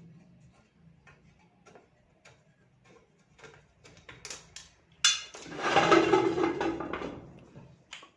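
Small metal clicks as nuts on a table fan's housing are worked loose with a tool. About five seconds in, a loud rough noise starts suddenly and lasts about two seconds.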